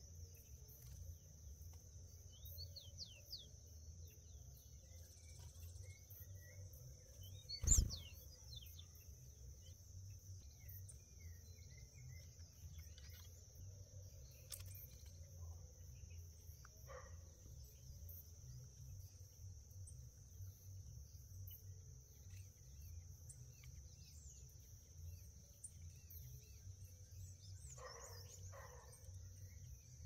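Wild birds chirping and calling at intervals in a garden over a steady high insect drone, with one sharp knock about eight seconds in.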